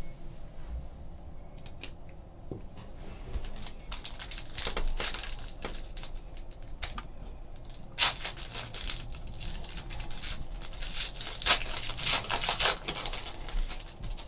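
Trading card packs and cards being handled: crinkling pack wrappers and cards sliding against each other in short, irregular rustling bursts, loudest about eight seconds in and again near the end.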